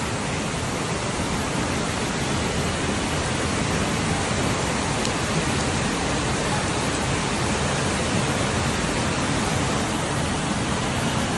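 Steady, unbroken rushing of a muddy flash-flood torrent surging down a city street, mixed with heavy rain.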